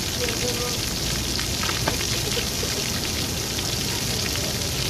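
Steady hiss of falling water, with a faint knock about two seconds in.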